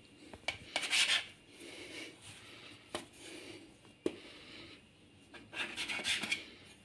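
Stainless-steel bench scraper cutting through bread dough and scraping on a stone countertop. There are two short bursts of scraping, about a second in and again near the end, with a few sharp clicks of the blade against the counter between them.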